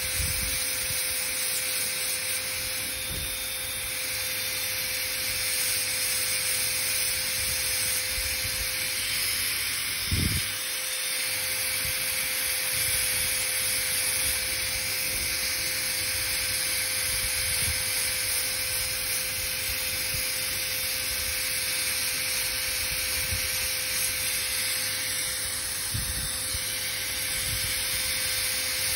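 High-speed air-turbine dental handpiece with a chamfer bur running steadily with a high hiss while shaving the axial walls and finishing line of a typodont lower molar preparation. A single short knock about ten seconds in.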